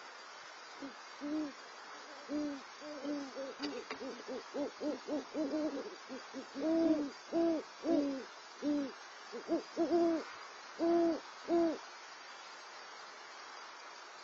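Great horned owls hooting back and forth in a pair's duet: some two dozen low hoots, a quicker run in the middle followed by slower, longer hoots.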